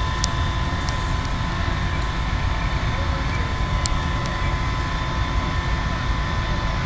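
Gas from a ruptured gas main burning with a loud, steady rush, with a few faint clicks over it.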